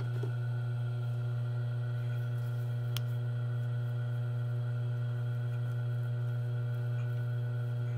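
Steady low electric hum of a Royal industrial sewing machine's motor left running while the machine is not stitching. A faint click about three seconds in.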